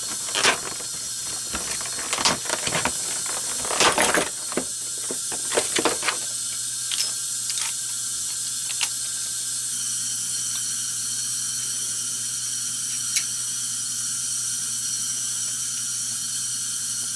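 Steady hiss of compressed air fed into a cylinder of a 7.4L Chevy V8 through the spark plug hole, leaking past the piston rings. Over the first six seconds, clicks and rattles of a metal valve spring compressor being pulled from its plastic packaging and handled.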